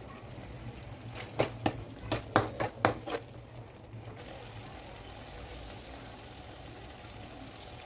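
A cooking utensil knocking against a pan about seven times in quick succession, over the steady low hiss of curry simmering.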